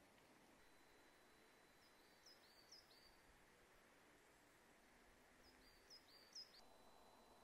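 A small bird calling twice in quiet forest, each time a quick run of three or four high chirps, the second run a little louder, over near silence.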